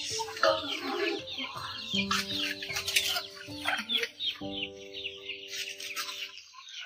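Chickens clucking and birds chirping over soft background music with long held notes.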